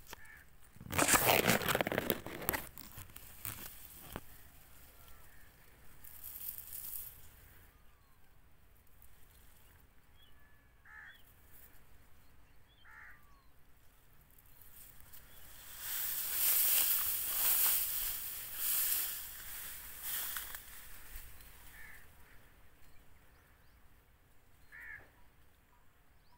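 Outdoor ambience: two loud stretches of rustling noise, one about a second in and one lasting a few seconds past the middle, with a few faint short bird calls in between and near the end.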